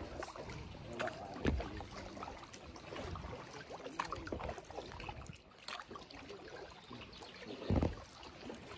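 Kayak paddle strokes: splashing and dripping water as the blades dip and lift. Two dull thumps stand out, about a second and a half in and near the end.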